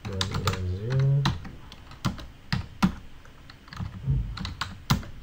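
Typing on a computer keyboard: keys clicking in quick, irregular runs.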